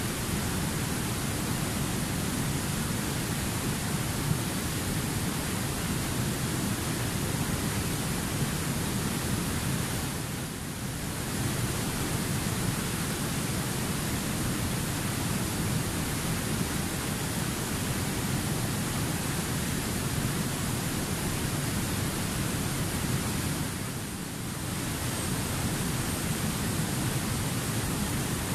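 Fast-flowing river rushing over rock rapids: a steady wash of water noise that dips briefly twice.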